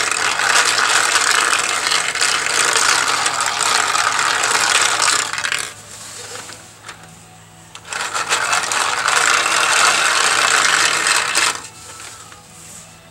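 Small metal balls clattering and rattling through a 3D-printed plastic marble maze as its Archimedes screw lift is turned by hand. The rattle runs dense and continuous, drops away for about two seconds near the middle, starts again, and dies down shortly before the end.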